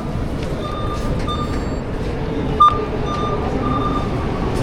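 Rumble of a train or metro in motion, with a series of short, high electronic beeps at uneven intervals, one sharper and louder beep about two and a half seconds in.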